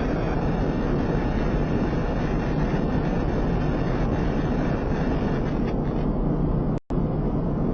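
Steady low noise with no distinct events, broken by a brief dropout to silence about seven seconds in.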